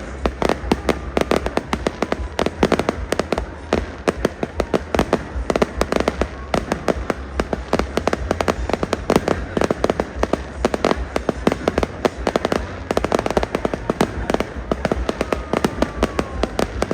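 Fireworks going off in a dense, continuous barrage of bangs and crackling pops, many a second.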